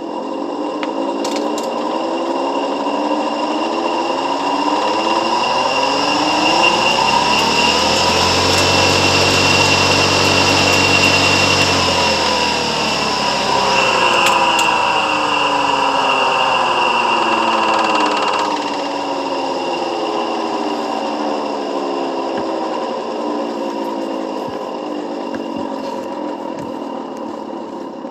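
Three-phase electric motor running with a high whine and steady tones. It swells to a peak where a deeper hum joins, then the highest part cuts off suddenly about two-thirds of the way through and the rest slowly fades.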